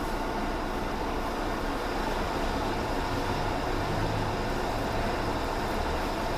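Steady machine-shop running noise: an even low hum with a hiss over it and no distinct knocks or changes.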